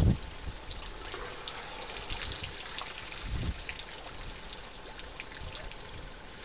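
Water trickling, dribbling and splashing in many small drips as an African elephant drinks, its trunk working in the waterhole. A low thump sounds right at the start and another about three and a half seconds in.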